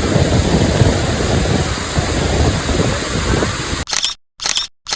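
Waterfall in heavy flow: a loud, steady rush of falling water. It cuts off almost four seconds in, and a few short, sharp bursts separated by silence follow.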